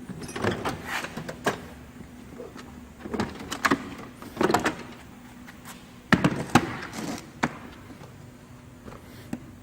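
Metal toolbox drawers sliding open and shut, with tools rattling and clanking inside, in four separate bursts; the loudest comes about six seconds in.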